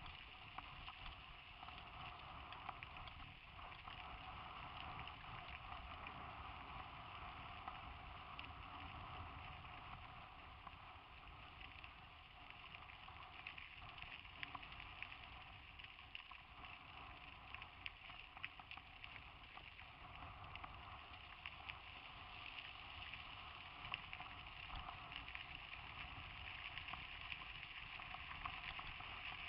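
Steady rolling and wind noise on a helmet-mounted camera riding a mountain bike over a dirt track, with scattered small clicks and rattles from the tyres and bike, and a couple of louder knocks near the end.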